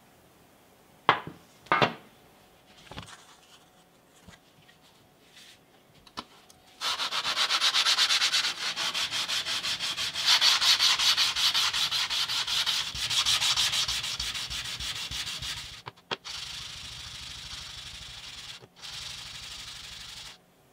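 Two sharp knocks, then a rusty steel pipe-cutter slider bar rubbed by hand on wet sandpaper: fast, even back-and-forth sanding strokes that begin about a third of the way in and grow softer near the end.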